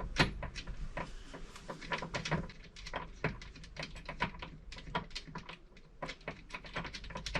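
Rapid, irregular light clicks and taps, several a second, of small hard parts being handled, such as a fuse and its heat-melted plastic holder.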